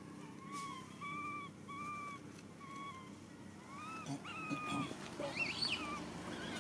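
Newborn long-tailed macaque crying: a run of short, even coos about one every half second, then longer calls that rise and fall, and shriller squeals about five seconds in.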